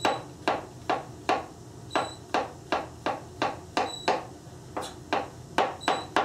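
Chef's knife slicing mushrooms thinly on a cutting board: a steady rhythm of knife strikes on the board, between two and three a second, some with a faint metallic ping.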